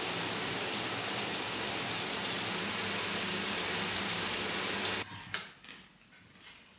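Shower running, a steady spray of water that stops abruptly about five seconds in.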